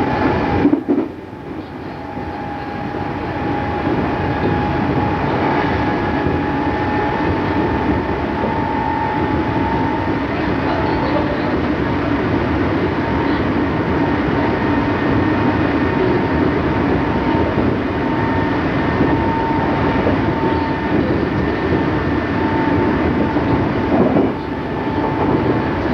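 Odakyu 8000-series electric train with its original field-chopper control, heard from inside a carriage while running: steady wheel and motor noise with a steady whine. The sound drops sharply about a second in and builds back over the next few seconds, and dips briefly once more near the end.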